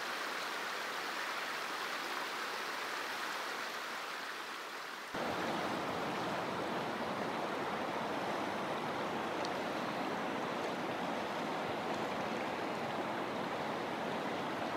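River water flowing over a riffle, a steady rush. About five seconds in it jumps louder and fuller.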